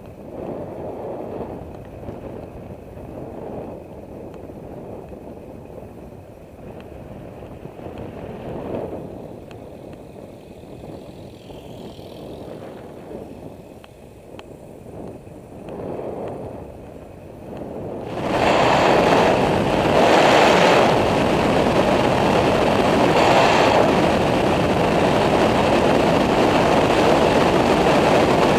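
Wind buffeting the microphone of a camera mounted on a moving bicycle, a low rumbling rush at first. About two-thirds of the way through it suddenly turns much louder and hissier as the bike heads into a downhill descent.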